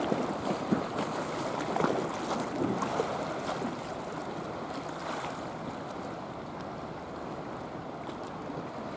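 Sea water lapping and sloshing with wind on the microphone, with a few small splashes in the first three seconds or so.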